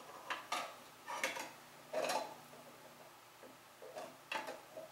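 A few light, irregular clicks and knocks as a small child handles a plastic tornado-in-a-tube toy; the toy's motor is off.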